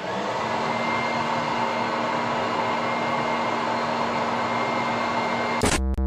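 Steady whirring of an electric appliance motor with a held hum. Near the end it is cut off by a sudden loud low burst, followed by a few short musical tones.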